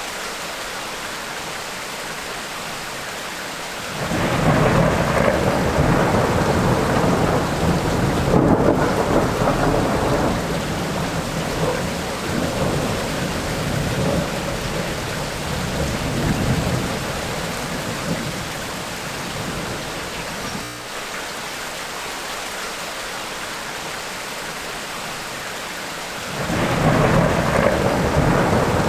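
Tropical rainstorm: steady rain with rolling thunder. A long rumble comes in about four seconds in and lasts some sixteen seconds, and another starts near the end.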